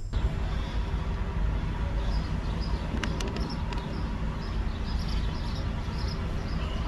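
Ford E-150 van's engine idling steadily, heard from inside the cab. A single sharp click comes about three seconds in, and faint high chirps repeat over the idle.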